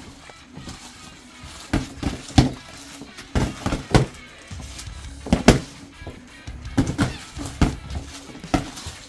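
Boxing-glove punches landing in a sparring bout: about a dozen sharp thuds and slaps, some in quick pairs, over steady background music.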